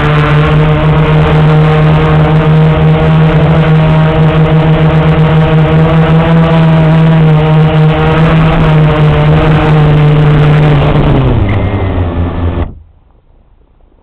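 Blade 350QX quadcopter's motors and propellers whirring with one loud, steady hum, heard close up from a camera mounted on the quad. About eleven seconds in the pitch drops as the motors spin down on landing, and the sound cuts off suddenly near the end.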